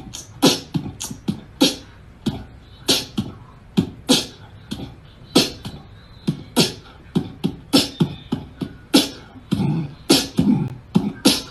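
A beatboxed percussion beat of sharp clicks and snare-like hits, about two to three a second in a loose rhythm, with low thumps coming in more strongly near the end.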